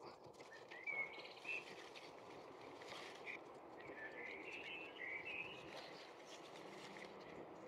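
Small birds chirping on and off over a faint, steady background hiss.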